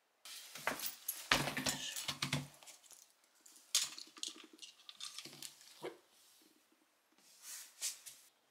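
Dog harness and leash being fitted onto a small Shiba Inu: nylon straps rustling and metal clasps and buckles clicking and jangling in quick irregular bursts, busiest in the first couple of seconds. A brief low grumble comes through about a second in.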